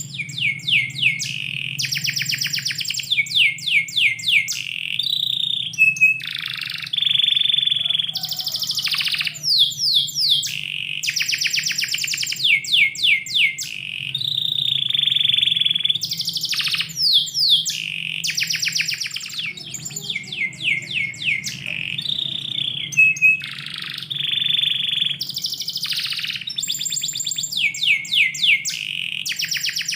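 Domestic canary singing continuously in a long, varied song: rapid rattling trills, held whistled notes and quick downward-sweeping phrases follow one another with only brief breaks. A faint steady low hum runs underneath.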